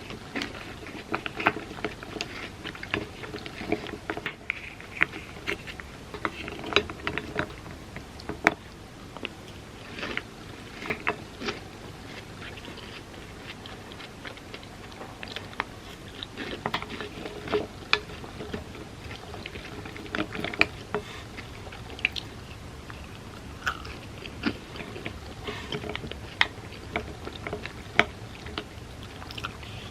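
Close-up chewing and crunching of chocolate hazelnut wafer bars eaten as cereal in milk, with sharp, irregular clicks scattered throughout.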